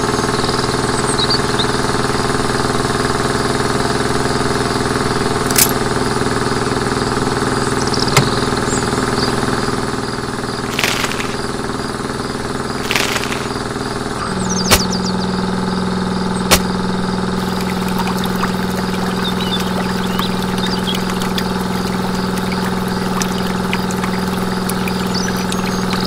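Small electric motor driving a miniature roller juice press, a steady hum whose tone changes and grows stronger about fourteen seconds in, with a few light clicks.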